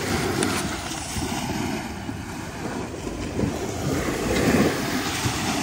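Wind buffeting the microphone: an uneven low rumble with no steady pitch.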